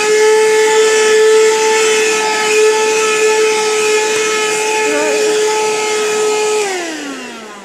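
Shark vacuum cleaner's motor running at full speed with a steady high whine and rushing air, then switched off near the end, its pitch falling as it winds down.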